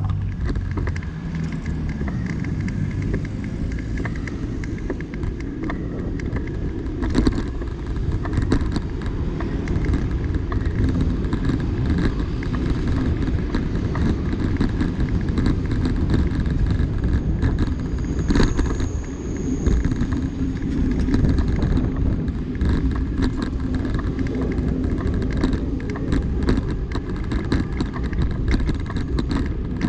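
City street traffic with cars driving past, under a steady low rumble of wind on a moving microphone.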